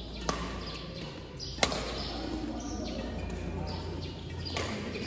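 Badminton rackets striking a shuttlecock during a rally: three sharp hits, the second, about a second and a half in, the loudest, over a steady hum in a large hall.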